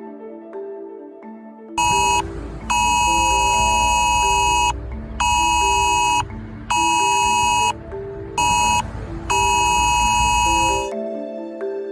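Smartphone emergency alert tone, the UK government Emergency Alert siren: a loud, harsh two-pitch beep sounding in six abrupt on-off blasts, the longest about two seconds. Soft mallet-percussion background music continues underneath.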